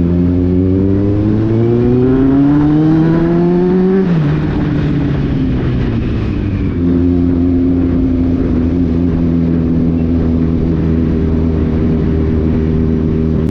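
Kawasaki Z800's inline-four engine under way, its pitch rising steadily as it accelerates for about four seconds, then falling sharply as the throttle is closed or a gear changes. It then holds a steady note.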